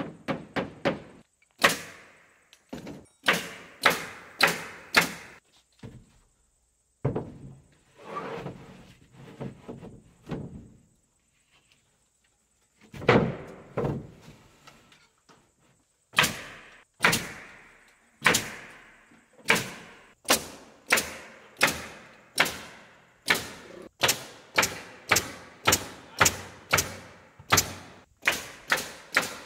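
Nails being driven into the OSB sheathing of a small porch roof: a series of sharp knocks, coming in scattered groups at first, then steadily about two a second over the last ten seconds.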